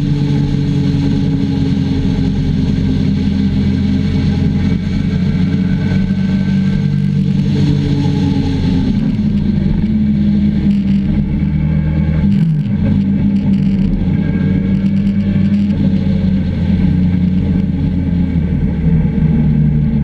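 Motorcycle engine running under way, heard from a camera mounted on the bike with wind noise. The engine note shifts in pitch through the bends, with a brief dip about twelve seconds in.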